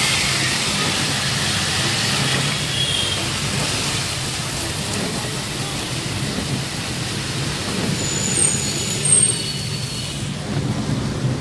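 Steady hiss of rain and wet road noise with a low engine hum, heard from inside a moving car. A few short high-pitched squeaks come near the end.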